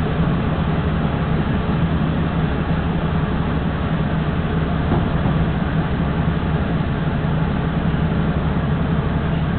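DR2700 diesel railcar's engine and running noise, heard from the front of the car: a steady low drone as the railcar runs slowly into a station.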